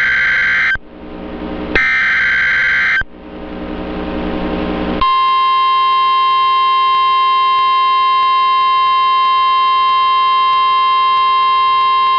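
Emergency Alert System SAME header. Raspy data bursts about a second long sound twice, the second ending about three seconds in, with a rising hiss in the gaps. From about five seconds in, the steady single-tone NOAA Weather Radio warning alarm sounds, marking the start of a new alert, here a flash flood warning.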